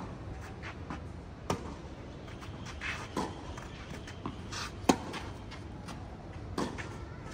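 Tennis rally: a ball struck sharply by rackets about every second and a half, with fainter knocks of the ball bouncing between the hits.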